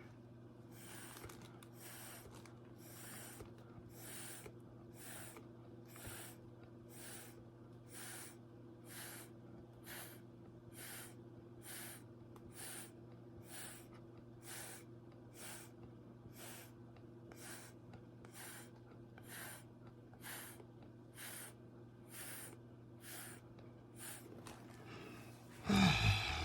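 Quick puffs of air repeating about twice a second over a steady low hum.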